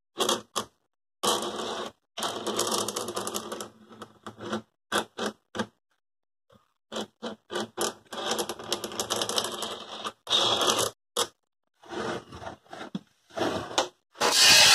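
Steel knife blade scraping by hand in a string of short rasping strokes that stop and start, with brief silences between them.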